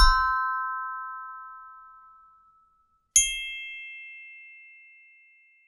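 Two computationally designed flat metal metallophone plates, each struck once with a mallet, each ringing a C–E–G major chord from a single strike. The first (C6, E6, G6) fades over about two and a half seconds; about three seconds in the second rings the same chord an octave higher (C7, E7, G7) and is still sounding at the end.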